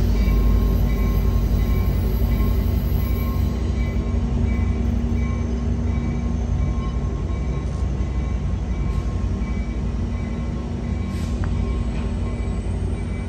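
Caltrain Stadler KISS bilevel electric multiple-unit cars rolling past dead-in-tow behind a freight locomotive: a steady rumble of steel wheels on rail, slowly getting quieter.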